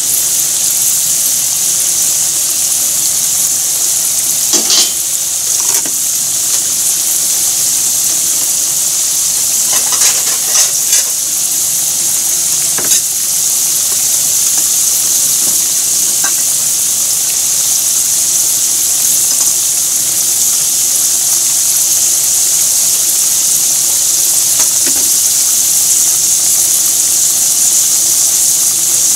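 Hot oil sizzling steadily as chunks of food deep-fry in a frying pan, with a few sharper crackles and pops about five seconds in and again around the middle.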